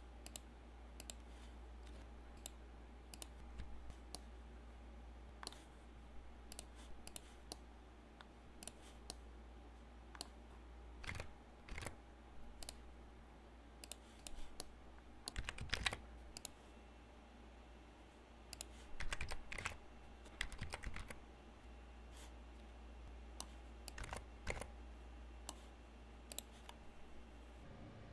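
Computer keyboard keys and mouse buttons clicking irregularly, sometimes in quick clusters, over a steady low hum.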